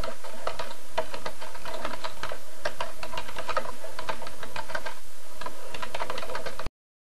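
Fast typing on a computer keyboard: a quick, irregular run of key clicks at an even pace that cuts off abruptly near the end.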